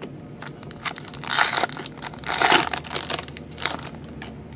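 Trading-card pack wrapper crinkling as it is handled and opened, in two loud crinkling bursts about a second apart with a shorter one after, and small rustles and clicks between them.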